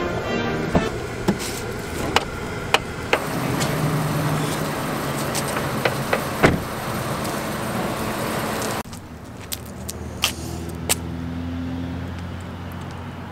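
Car sounds: a steady rushing noise with scattered clicks and knocks, and one heavier thump about six and a half seconds in as the car door shuts. The noise drops suddenly about nine seconds in, leaving a quieter background with a few more clicks.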